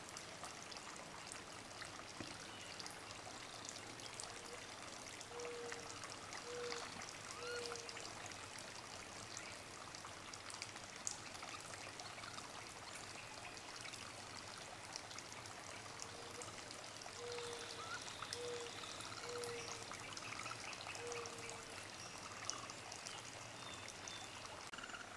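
Steady trickle of running water. Over it come two short runs of low, evenly spaced hooting notes, three about five seconds in and five more about sixteen to twenty-one seconds in.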